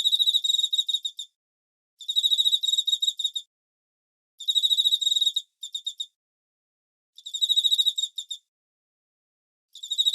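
Cricket chirping: trains of rapid, high-pitched pulses, each lasting about a second, repeating every two seconds or so with silent gaps between.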